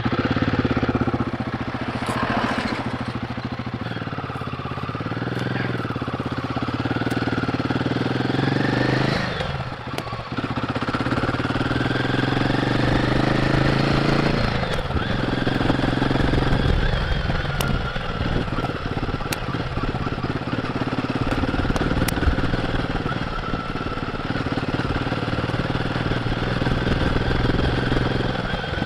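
Royal Enfield Guerrilla 450's single-cylinder engine running through its stock exhaust as the motorcycle is ridden, its note rising and falling with the throttle and dipping briefly twice, about ten and fifteen seconds in.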